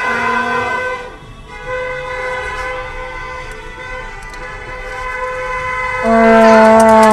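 Many car horns honking at once in overlapping steady tones, heard from inside a car. Near the end a plastic fan horn (vuvuzela) blown close by gives one loud, low blare for about a second and a half.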